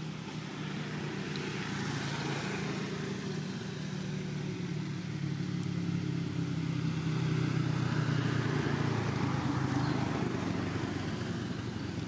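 A motor vehicle engine running with a steady low hum, growing louder to a peak about two-thirds of the way through and then easing off, as if passing by.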